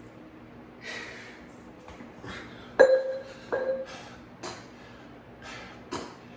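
Two sharp metallic clinks, about three-quarters of a second apart, each ringing briefly at a steady pitch: workout gear knocked or set down. Several short heavy breaths come between them at the end of a set.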